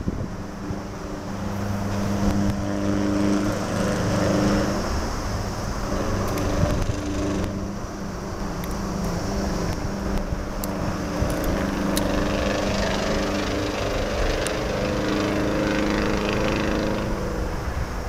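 A steady low engine drone with a gently shifting pitch, over the irregular rumble of wind on the microphone.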